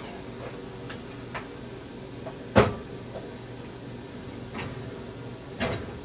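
Kitchen cupboard being opened and things on its shelves handled: a run of light clicks and knocks, the loudest a sharp knock about two and a half seconds in and another about five and a half seconds in, over a faint steady hum.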